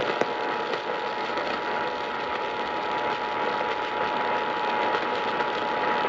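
Emergency Alert System attention signal: the steady two-tone alert (about 853 and 960 Hz) held without a break, marking the start of a Required Monthly Test. It is heard off AM broadcast through a Sangean alert radio's speaker, with hiss and static underneath.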